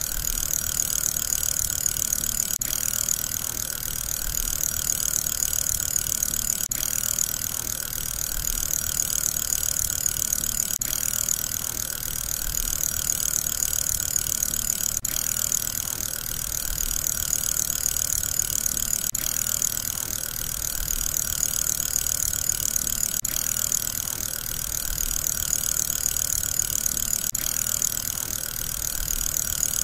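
Fidget spinner whirring steadily as it spins, a hissing, rattly whirr from its bearing that swells and eases about every four seconds, like a repeating loop.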